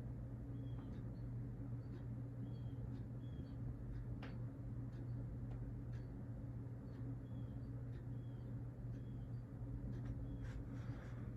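Hunter Infiniti ceiling fan running on low speed with a steady low hum. Faint short high chirps recur every half second or so, with one light click about four seconds in.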